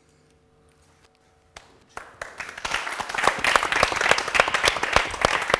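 A short hush, then audience applause breaks out about two seconds in and grows louder.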